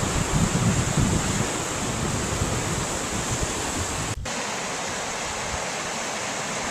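Wind buffeting the microphone over the steady rush of a river. About four seconds in the buffeting breaks off, leaving only the even rush of water running over shallow rapids.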